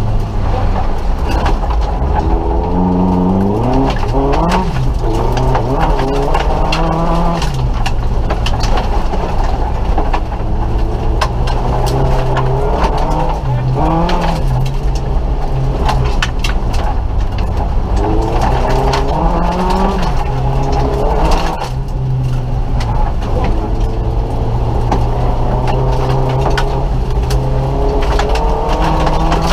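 Nissan Micra rally car's engine heard from inside the cabin at full stage pace, revving up and dropping back again and again as it changes gear, over a constant rumble of road and tyre noise.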